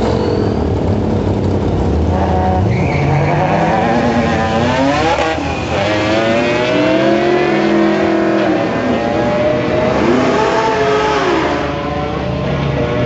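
Two drag-racing cars launching from the start line about two seconds in and accelerating hard down the strip, their engines climbing in pitch and dropping back at each gear change.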